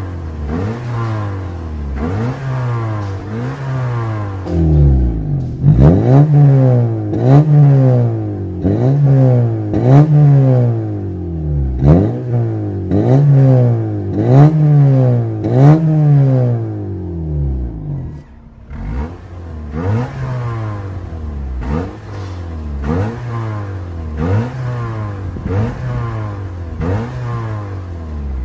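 Honda Accord's engine being blipped repeatedly at standstill, short rising-and-falling revs about once a second, through an aftermarket valved ('Valvetronic') exhaust. About five seconds in the revs turn much louder as the exhaust valve is opened to the 'racing' setting. Around eighteen seconds in they drop back quieter with the valve closed to the standard setting.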